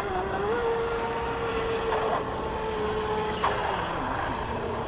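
Radio-controlled boat's motor whining at speed as the boat circles. The pitch rises slightly about half a second in, holds steady, then drops near the end as the boat eases off.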